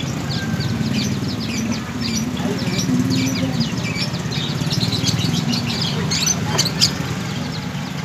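Many caged small birds chirping busily, short high chirps overlapping throughout, over a steady low drone.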